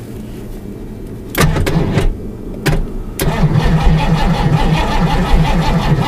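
1989 Mustang GT's 331 stroker V8 being cranked on the starter in −14 degree cold: it comes in about a second and a half in with a couple of short, broken bursts, then from about three seconds in turns over continuously with a steady pulsing beat.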